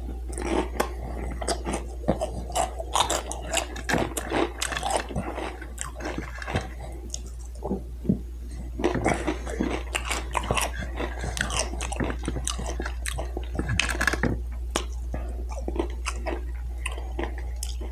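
A person chewing food close to the microphone: irregular wet mouth clicks and smacks with some crunching.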